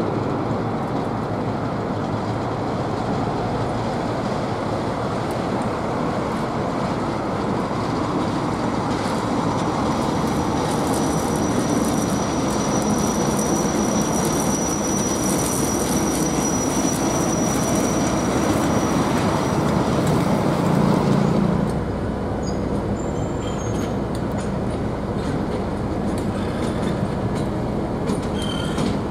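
Freight wagons of a diesel-hauled work train rolling past, with a thin high wheel squeal held for several seconds, then a DC-class diesel-electric locomotive's engine passing, loudest about twenty seconds in. The sound then drops suddenly to a quieter, steady diesel engine hum.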